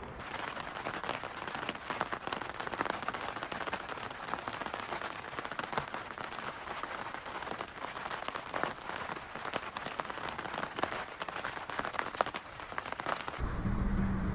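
Rain falling steadily, with a dense stream of close drop hits on hard surfaces. Near the end it cuts to a low steady rumble.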